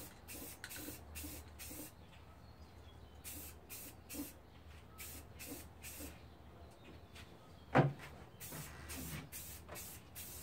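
Aerosol can of spray primer hissing in short, quick bursts, a light dusting coat, in runs with brief pauses between them. One louder short sound comes about eight seconds in.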